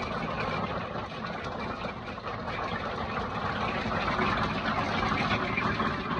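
Golf-ball-size hail pelting down, a dense continuous clatter of countless impacts. It grows louder from about four seconds in.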